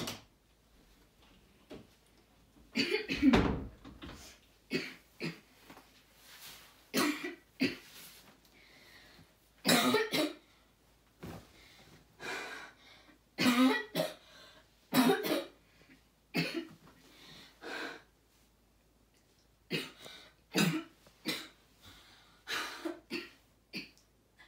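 A boy coughing again and again in short fits of one to three coughs, the loudest about three seconds in, acted as a symptom of coronavirus illness.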